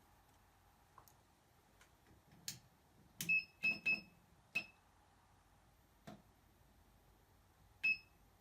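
Short electronic beeps, each with a button click, from the control panel of a hot-air rework station as its temperature is adjusted: four in quick succession about three to five seconds in and one more near the end, over a faint steady hum.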